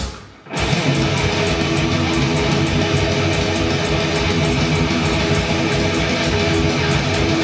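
Electric guitar played through the Ignite Amps Emissary amp simulation in STL AmpHub: a riff with a fast, even pulse of low notes, starting about half a second in.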